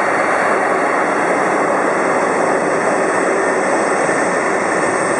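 Jet airliner engines running, a steady loud rush with a faint high whine on top.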